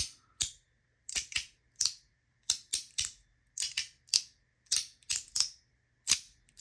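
Titanium EDC fidget slider being snapped back and forth between its two detent positions: a run of sharp metal clicks, about two to three a second, often in quick pairs.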